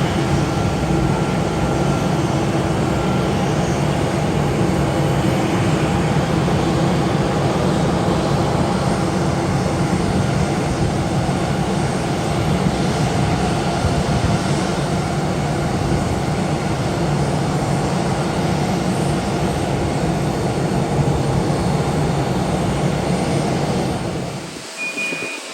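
Jet airliner engines running, a loud steady rumble with a faint hum in it that cuts off sharply near the end.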